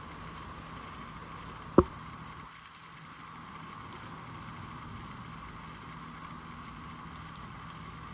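Rain-O-Mat brass ball-drive full-circle sprinkler running, its spray and rotor giving a steady hiss with a steady tone in it. A single sharp knock about two seconds in.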